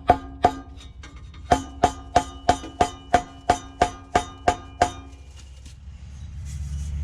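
Hammer blows driving a homemade exhaust pipe up into place under a car, about three a second with a short pause after the first two, each blow leaving the metal pipe ringing. The blows stop about five seconds in, and a low rumble rises near the end.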